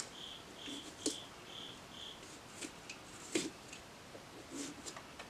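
Kitchen knife sawing and cutting through pumpkin rind. For the first two seconds the sawing strokes come with short high squeaks, about two a second, and after that there are only scattered soft clicks and scrapes.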